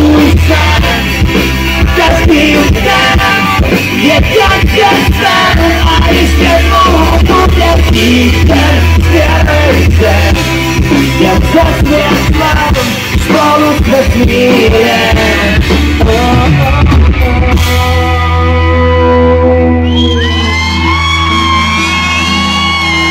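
Live pop-rock band with a singer playing loud. About eighteen seconds in, the drumming stops and the song closes on a long held chord with sustained notes over it.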